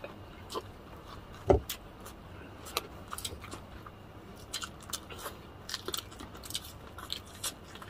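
Close-miked eating of crispy fried chicken and rice: scattered crunchy bites, mouth clicks and smacks, with one louder thump about one and a half seconds in.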